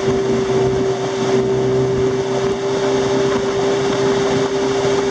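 Small outboard motor pushing an aluminium dinghy along at a steady cruising speed, one even engine note over a rush of wind and water.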